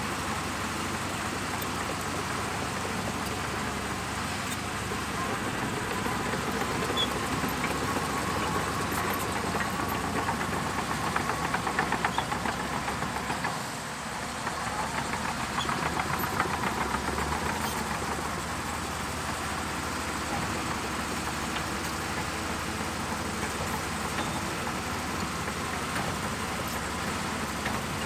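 Shantui DH17C2 bulldozer's diesel engine running steadily as it works. It grows louder in the middle stretch, dips briefly about halfway, then comes back up.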